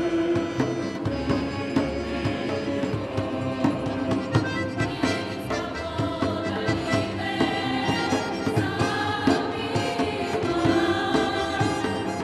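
Mixed folk choir of men and women singing a folk song together in several voices.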